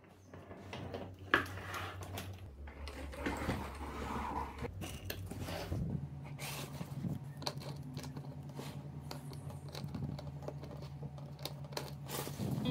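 A wheeled suitcase with a broken wheel being rolled and handled on a tile floor: scraping and irregular clicks and knocks, with one sharp knock about a second and a half in, over a low steady hum.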